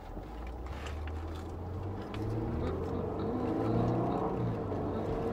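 Car engine and road noise heard from inside the cabin as the car accelerates. A low rumble sets in at the start and grows gradually louder, its pitch stepping up and down.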